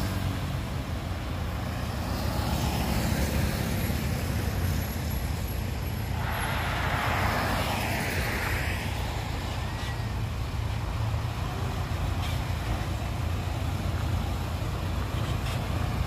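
Hyundai dump truck's diesel engine running as it drives up and pulls off the road toward the listener, the low rumble growing near the end. About six seconds in, another vehicle swells past and fades.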